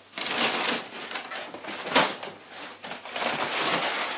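Crumpled brown kraft packing paper rustling and crinkling as a hand rummages through it, with a sharper crackle about two seconds in.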